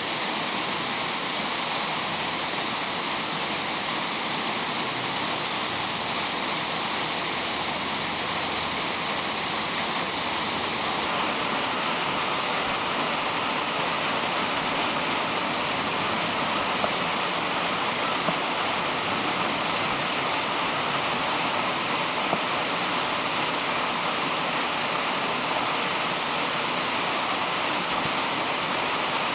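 Steady rush of flowing stream water, an even hiss with no pauses; the highest part of the hiss drops away about eleven seconds in.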